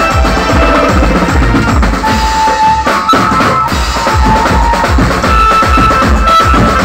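Live band music: a drum kit keeps a steady beat with bass drum and snare under held electronic keyboard notes. The low beat drops out briefly about three seconds in, then comes back.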